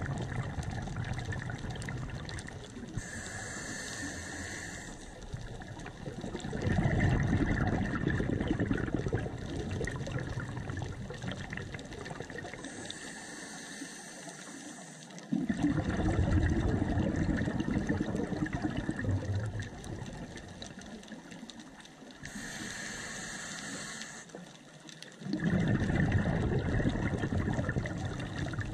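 Scuba diver breathing through a regulator, heard underwater through a camera housing: three slow breaths about nine seconds apart, each a short hissing inhale followed by a longer, louder burble of exhaled bubbles.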